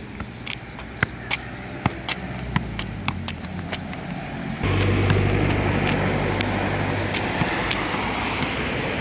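A football being juggled and kicked, with sharp taps of the ball on the foot and the asphalt about twice a second. About halfway through, a motor vehicle's engine noise comes in suddenly as a steady low hum and becomes the loudest sound, easing off slowly while the ball taps go on under it.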